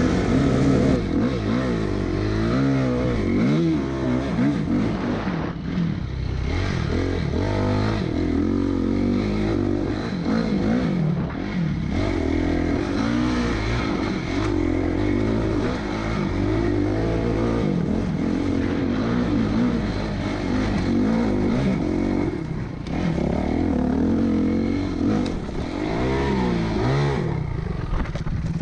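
Dirt bike engine revving up and down over and over as it is ridden along a rough trail, its pitch rising and falling every second or two.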